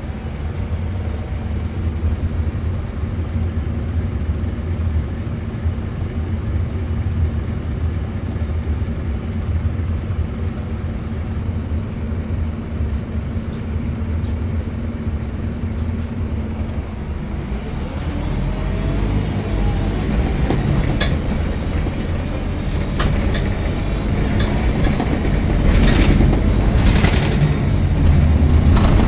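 Scania K270UB bus's rear-mounted diesel engine idling steadily, heard from inside the saloon. About eighteen seconds in the bus pulls away and the engine note rises, with knocks and interior rattles growing louder near the end.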